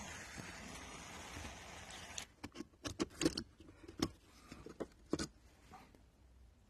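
A steady hiss, then from about two seconds in a quick run of small sharp clicks and light taps of small metal parts being handled: brass crank connectors with set screws on steel rods.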